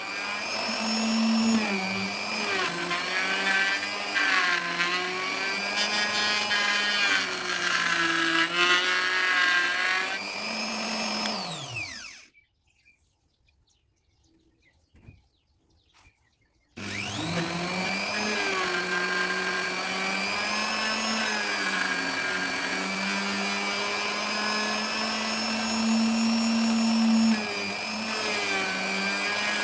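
Electric wood router cutting teak: a steady high motor hum whose pitch dips and wavers under the load of the cut. About twelve seconds in it is switched off and winds down, falling in pitch. After about four seconds of quiet it starts again and runs steadily.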